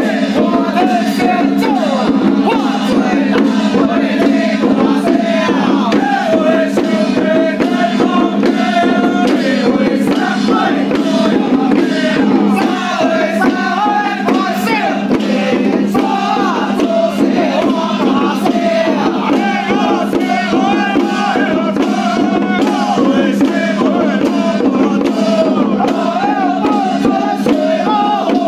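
A Taoist little-ritual (xiaofa) troupe of men chanting a ritual song together in loud unison, with their handled hand drums keeping a steady beat of sharp strokes.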